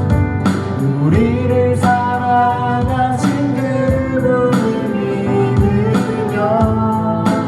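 A song performed live: singing over instrumental accompaniment with a steady beat.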